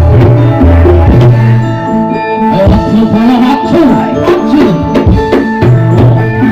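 Live campursari band music over loudspeakers: hand-drummed kendang strokes over keyboard chords and a deep, held bass, with a wavering, sliding melody line through the middle.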